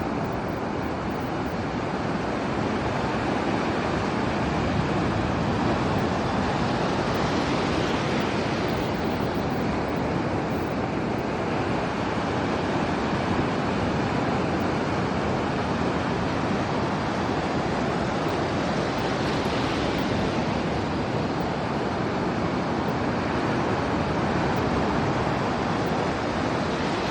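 Ocean surf washing onto a beach in a steady rush, swelling every several seconds as waves break, with some wind on the microphone.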